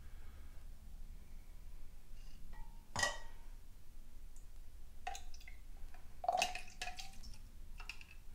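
Glass clinks and dripping liquid as mead is drawn from a glass jug with a wine thief and let into a glass hydrometer test cylinder. One sharp clink about three seconds in, then a quick run of clinks from about five to seven seconds.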